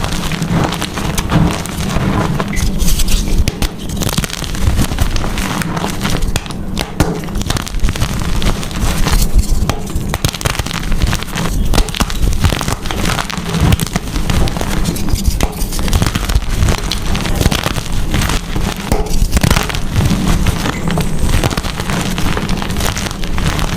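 Gym chalk being crushed and crumbled, a continuous run of dense crunching crackles.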